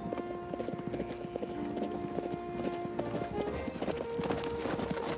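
Hoofbeats of horses galloping, a fast run of thuds, under background music with long held notes that change about three seconds in.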